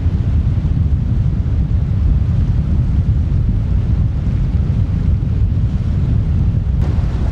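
Wind buffeting the camera's microphone: a loud, fluctuating low rumble, with a faint click near the end.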